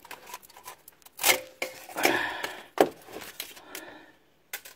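The old exhaust manifold gasket being pulled off the cylinder head studs: a run of sharp metal clicks and scrapes, the loudest about a second in, at two seconds and near three seconds.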